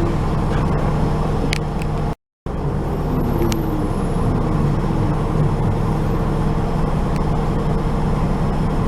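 Interior of a city sightseeing bus under way: steady engine and road rumble with a few faint rattles and clicks. The sound cuts out completely for a moment about two seconds in.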